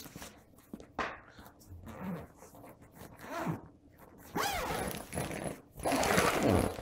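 Zip of a fabric carry bag being pulled open in short rasping strokes, the longest and loudest pulls coming in the last two or three seconds.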